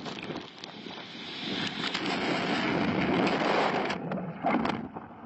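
Wind buffeting the microphone and seawater rushing over the deck of a heeled sailboat in heavy seas. The rush swells to its loudest about three to four seconds in as a wave breaks across the deck, then falls away, with a few sharp knocks along the way.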